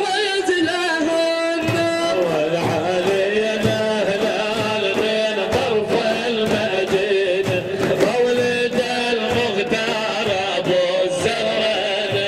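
Middle Eastern devotional music for a mawlid: a sustained, wavering melodic line over steady hand-drum strokes.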